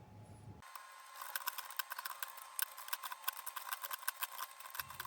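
Keys of a KB-117 wired keyboard being typed on quickly during a typing test: a fast, irregular patter of key clicks starting about half a second in.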